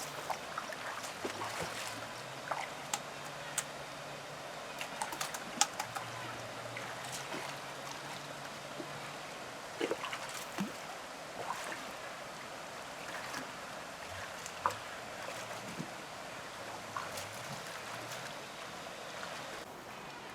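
Water splashing and trickling, with scattered light clicks and knocks.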